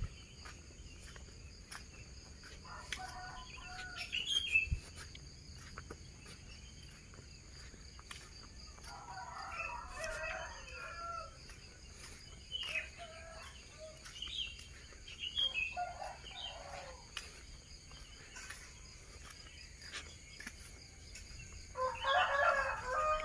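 Roosters crowing now and then, the longest crow about ten seconds in and the loudest near the end.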